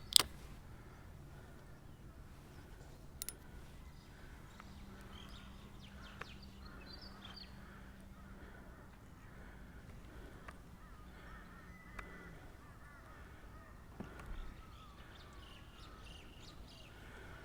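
Quiet outdoor ambience with birds calling faintly on and off, over a faint steady low hum. A sharp click right at the start is the loudest sound, with a weaker click about three seconds in.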